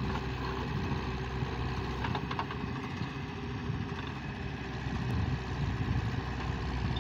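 Diesel engine of a Terex TLB 740S backhoe loader running steadily as its front loader bucket dumps sand into a tractor trailer, with a few faint clicks about two seconds in.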